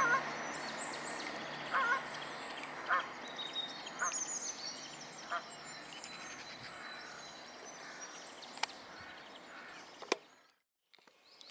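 Geese honking, a series of short calls about a second apart that grow fainter, with small birds chirping higher up. The sound cuts out briefly near the end.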